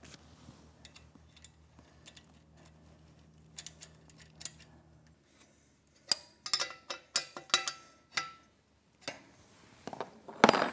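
Metal parts being handled: sharp clicks and knocks, some ringing briefly, with a louder clatter near the end. A faint low pulsing hum stops about five seconds in.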